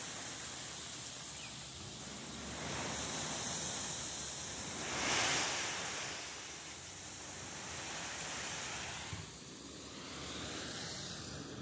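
Load sliding and pouring out of a raised tipper trailer body: a steady rushing hiss that swells about five seconds in.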